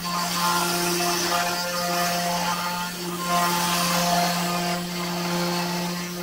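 Genmitsu 4040 Pro CNC router cutting 3 mm plywood under program control: a steady spindle hum with a rushing cutting noise, under whining tones that change and break off every second or so as the machine moves along the cut.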